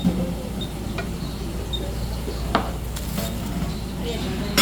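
Restaurant background noise with a few short knocks and clinks of tableware on the table.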